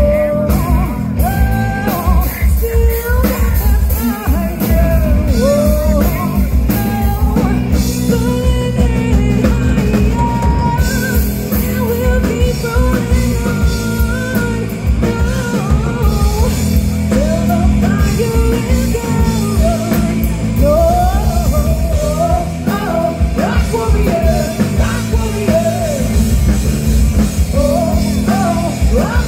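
Live rock band playing: a woman singing lead over electric guitars, bass guitar and a drum kit, at steady full volume.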